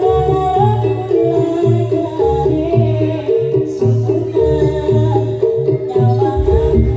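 Loud Javanese jaranan band music: a repeating pitched melody over a steady low beat about twice a second, with a singing voice.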